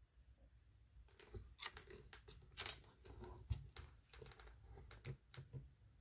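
Faint handling of a book: rustling and light clicks, with one sharper tap about three and a half seconds in.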